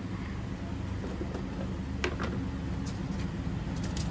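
Steady low background rumble, with a single light knock about two seconds in and a few faint clicks near the end.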